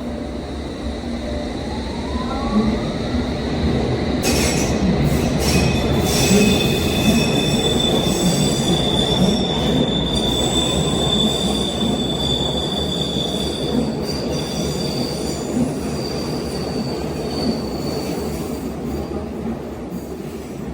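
London Underground S7 stock train pulling out of a station, its rumble swelling as a rising electric motor whine accompanies the acceleration. From about six seconds in, steady high-pitched wheel squeal rings over the noise, then fades near the end.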